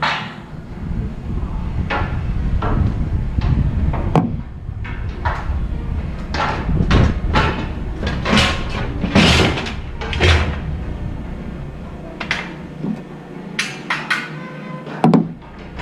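Scrap aluminum clanking as pieces are tossed and dropped one after another, irregular knocks, some ringing briefly, over a low rumble that stops near the end.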